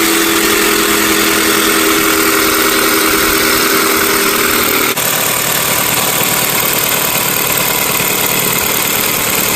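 Power tool motor running steadily with a loud hiss, changing abruptly about five seconds in as the steady hum drops away.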